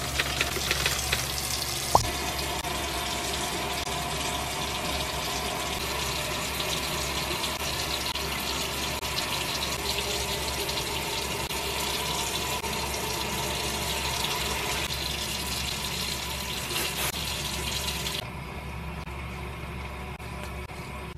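Water running from a bathroom sink tap, a steady rush that drops in level near the end, with one sharp click about two seconds in.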